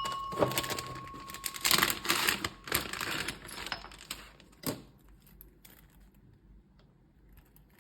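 Clicking and crinkling as a lucky bag of beaded wallet tassels is handled and unpacked. The clicks are dense at first and die away about five seconds in. A steady high tone sounds at the start and stops about a second and a half in.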